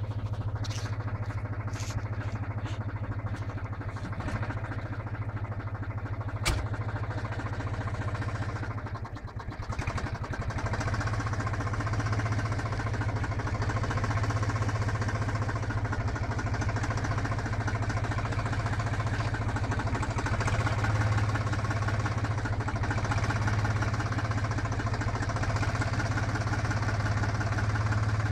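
Tractor diesel engine running steadily while powering a homemade PTO-driven earth auger as it drills into the soil. The engine sound sags briefly about nine seconds in, then picks up and runs somewhat louder; a single sharp click sounds a little before that.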